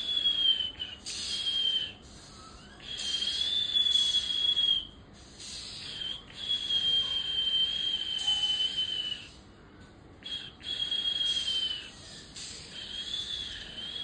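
Juvenile Oriental magpie-robin giving a run of long, thin, high whistled calls, each a steady or gently falling note with a hiss over it, some under a second and some nearly three seconds long, with short pauses between.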